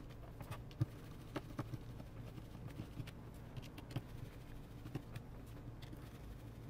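Faint, irregular small clicks and taps of a precision screwdriver working the tiny screws in a Samsung Galaxy S10 Plus's inner frame.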